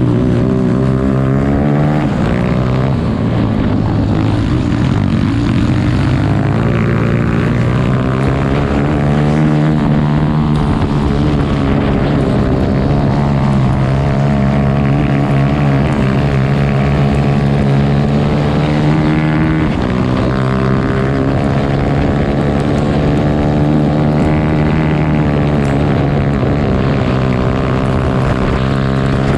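Racing grass kart engine running hard, heard from on board the kart. Its pitch drops and climbs again several times as the kart slows for corners and speeds up along the straights.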